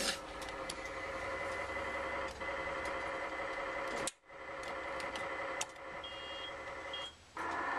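Claw machine's electronic play sound: a steady buzzing tone made of several pitches, which breaks off briefly about four seconds in and again near the end, with a couple of short high beeps shortly before the second break.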